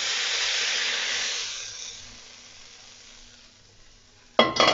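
Hot salmon and vegetable stir-fry sizzling as it is tipped from a stainless steel wok onto a plate. The sizzle dies away over about two seconds.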